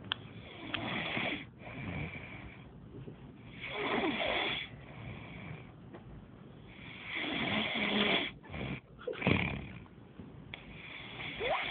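A person snoring heavily in sleep: about five loud, rasping snores, spaced roughly two to three seconds apart, with quieter breathing between them.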